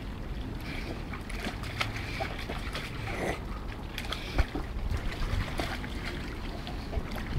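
Rottweiler pawing and digging in a shallow stream: water splashing and sloshing, with scattered sharp knocks as it works at stones and concrete on the bottom.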